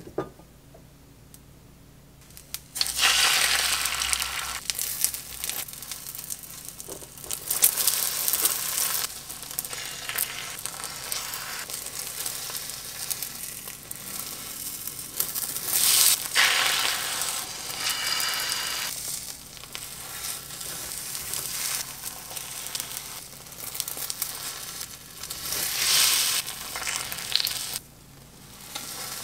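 Beaten egg with chopped vegetables sizzling as it fries in an oiled rectangular omelette pan, cooking a Korean rolled omelette (gyeran-mari). The sizzle starts about three seconds in and runs on with several louder surges.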